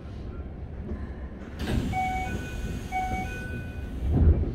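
Keikyu 1000 series train car at a station stop: a burst of air hiss with a short chime sounding twice, about a second apart, then a heavy thump about four seconds in, as the doors close.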